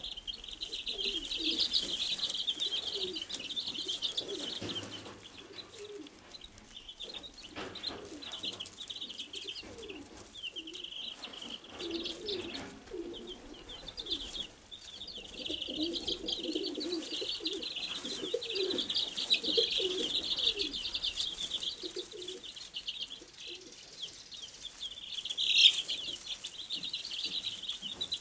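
A brood of Wyandotte bantam chicks peeping continuously, many short high chirps overlapping, with one louder peep near the end.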